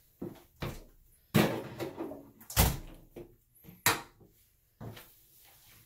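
A run of sharp knocks and clinks as things are handled at a bathroom sink, with a toothbrush being put into a small glass tumbler on the countertop. There are about a dozen separate knocks, the loudest about one and a half and two and a half seconds in.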